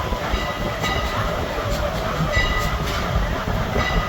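Railroad passenger car rolling along behind a steam locomotive: a steady rumble of wheels on rail, with light clicks and short high squeals now and then.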